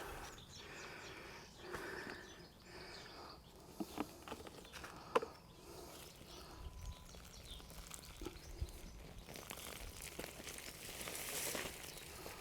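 Faint rustling and crumbling of dry potting compost as hands dig through a potato tub, with a few light sharp knocks around four and five seconds in.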